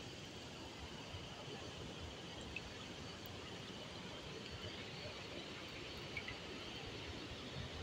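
River water running in the shallows, a soft steady hiss, with a low irregular rumble underneath.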